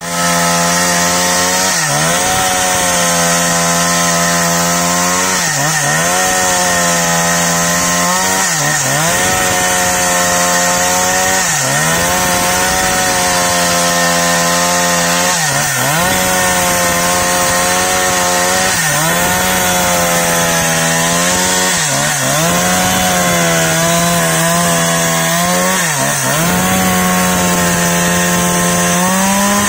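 Husqvarna 365 Special two-stroke chainsaw running at high revs as it rip-cuts a teak log lengthwise. Its engine note dips briefly and recovers about every three seconds.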